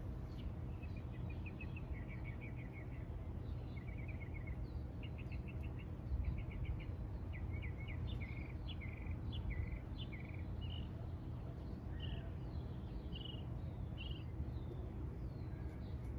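Small songbirds chirping and singing in quick trills of short repeated notes and brief slurred chirps, over a steady low background rumble.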